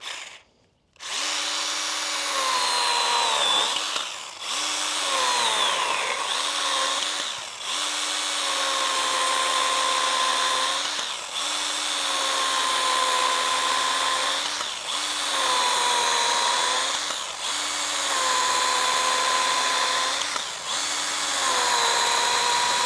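Stihl GTA 26 battery garden pruner (mini chainsaw) running in about seven short stretches as it makes a series of cuts through soft branches, which it goes through easily. The electric motor's steady whine starts about a second in and sags in pitch and level between cuts.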